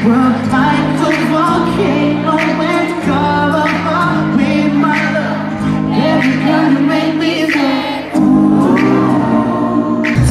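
Live concert music heard from the audience in an arena: a singer sings over held chords and a steady beat, all coming through the venue's sound system.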